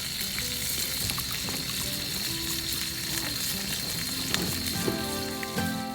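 Food sizzling in a hot pan: a steady frying hiss with small crackles. Faint music comes in near the end.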